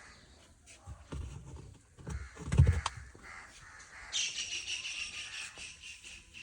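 A few low thuds, the loudest about two and a half seconds in, with birds calling.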